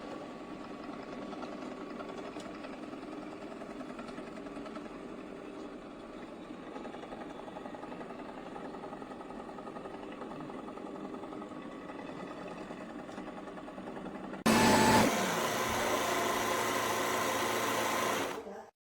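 Shark Matrix Plus robot vacuum running steadily, a mechanical hum with a few fixed tones. About fourteen seconds in, a much louder rushing noise starts abruptly, then cuts off suddenly a few seconds later.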